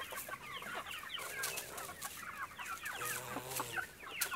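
Chickens clucking, many short calls in quick succession.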